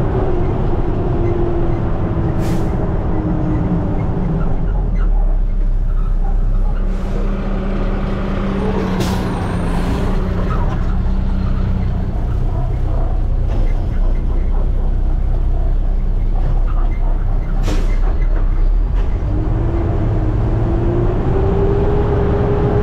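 Side-loader garbage truck's diesel engine running steadily, its pitch dropping early and climbing again near the end, with three brief air-brake hisses.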